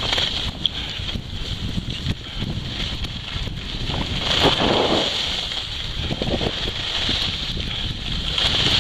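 Wind buffeting the microphone of a camera worn by a skier moving down a groomed slope, with the hiss of skis sliding on packed snow. The noise surges a couple of times partway through, as the skis carve a turn.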